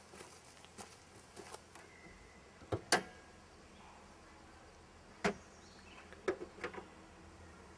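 Sharp clicks and knocks of a Honda CR-V's hood being unlatched and lifted and its metal prop rod set in place, the loudest a quick double click about three seconds in, then a few lighter clacks near the end.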